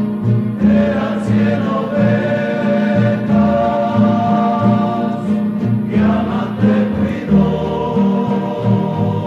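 Rondalla music: a group of voices singing a Christian hymn in harmony over strummed guitars and a plucked bass line.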